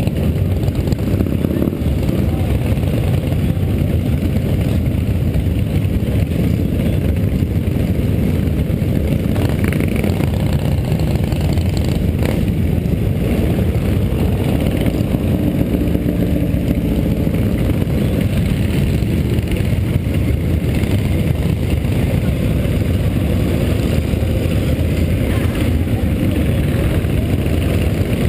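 Engines of a group of cruiser motorcycles running together as a steady deep rumble, with occasional revving as bikes pull away.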